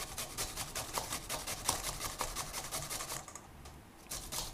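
Peeled raw green mango being grated on a flat stainless steel grater resting in a steel bowl: quick, rhythmic rasping strokes, several a second, with a short pause about three-quarters of the way through before the strokes start again.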